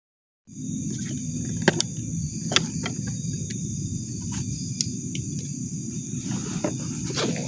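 Night insects, crickets, chirring in a steady high drone, over a low rumbling noise and scattered sharp clicks of handling; the sound starts abruptly about half a second in.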